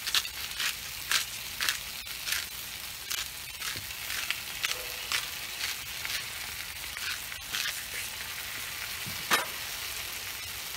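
Thin-sliced potatoes sizzling steadily on a hot Blackstone flat-top griddle. Seasoning is shaken and ground over them in short rattling strokes, about two a second for the first half, then sparser, with one louder knock about nine seconds in.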